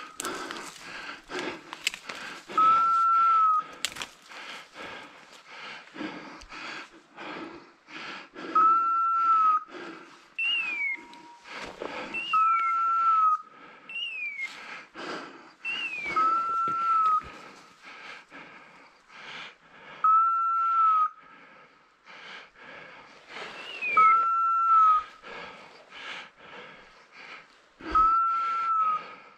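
Electronic dog beeper collar giving one short steady beep every few seconds, the slow run-mode rhythm of a setter on the move. Short falling chirps come between some of the beeps, over steady crackling and swishing of footsteps pushing through dry brush and leaves.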